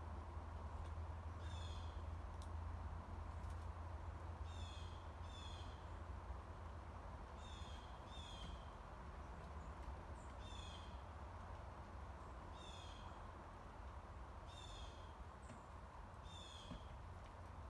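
A jay giving short harsh calls, some single and some in quick pairs, every couple of seconds, over a steady low rumble.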